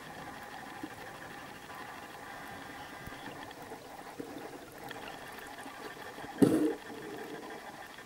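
Underwater ambience picked up by a camera held below the surface: steady water noise with a faint hum, and a short loud rush of water about six and a half seconds in.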